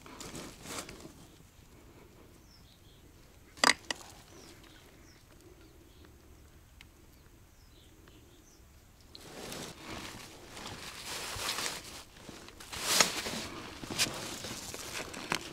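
One sharp click about a quarter of the way in, then a quiet stretch with faint bird chirps. From a little past halfway, rustling, footsteps and handling noise take over as fishing tackle is set out on the bank.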